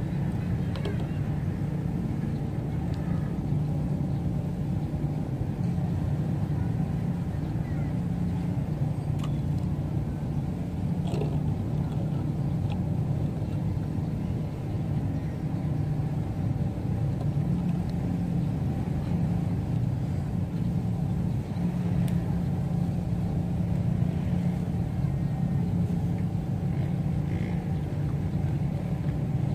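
Steady low mechanical rumble with a faint hum in it, unbroken throughout.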